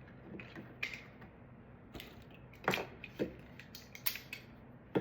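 Scattered small clicks and snaps of 3D-printed plastic support material being broken and picked off a printed figure with hand tools and fingers, the sharpest snaps a little under three seconds in and about four seconds in.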